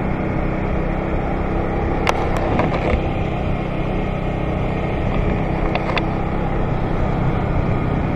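Motor scooter engine running steadily while riding, with road and wind noise. A few brief clicks come about two seconds in and again about six seconds in.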